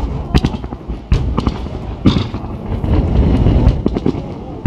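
Fireworks bursting in quick succession: an irregular run of sharp bangs over a continuous deep rumble, from shells fired at the water's edge and rockets climbing.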